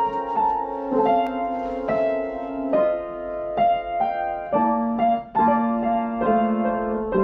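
Background music: a slow, gentle piano melody, with a new note or chord struck about once a second and left to ring.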